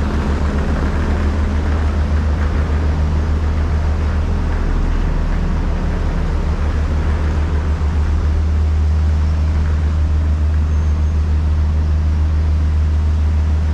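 Steady low drone of a docked ship's engines running, with a noisy hiss over it.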